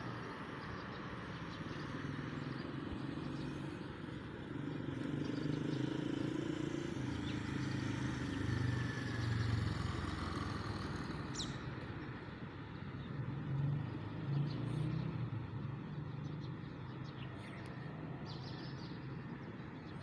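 Road traffic: a steady rumble of car engines and tyres that swells twice as vehicles pass.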